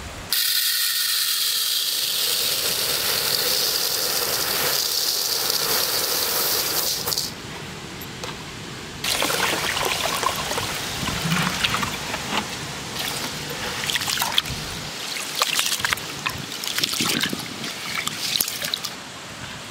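Water poured onto basmati rice in an aluminium pot and a hand swishing the grains around in it to wash them: a steady pour first, then uneven splashing and sloshing with small clicks of grain and hand against the pot.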